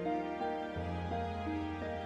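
Soft, slow background music: gentle held notes changing every half second or so over a low sustained bass note.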